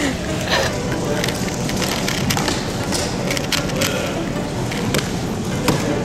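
Steady background noise of a busy room with scattered sharp clicks and knocks, and faint voices.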